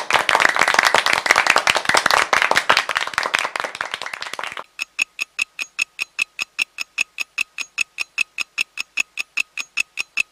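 A dense crackling rattle of rapid clicks for about four and a half seconds, then an even ticking with a faint tone in each tick, about six ticks a second.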